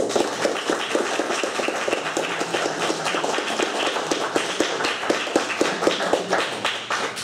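Audience applauding: many hands clapping in a dense, steady patter that starts abruptly and dies away near the end.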